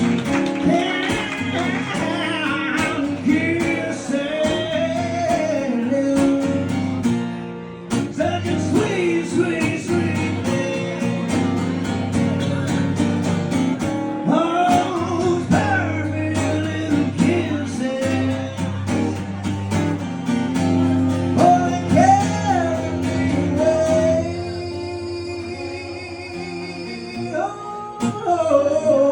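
Live acoustic song: a man singing over acoustic guitar. Near the end the voice drops out for a few seconds of quieter guitar before the singing returns.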